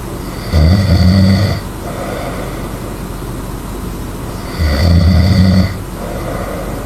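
A sleeping person snoring loudly: two low-pitched snores, each about a second long and about four seconds apart.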